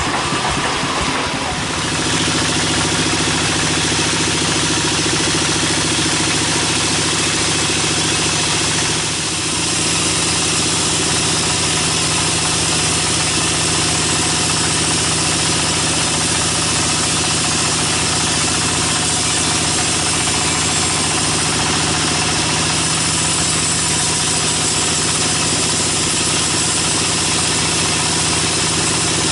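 Sawmill band saw running and cutting lengthwise through a log: a steady machine drone with the hiss of the blade in the wood. It dips briefly about nine seconds in.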